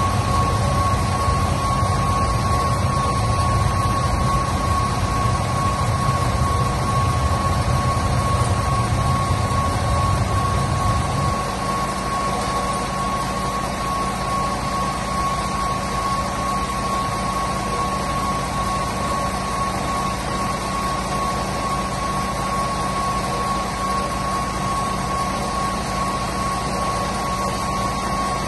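Iveco Magelys coach's rear-mounted diesel engine idling, heard up close at the open engine bay, with a steady high whine running along with it. About eleven seconds in the low rumble drops away and the engine runs on more quietly.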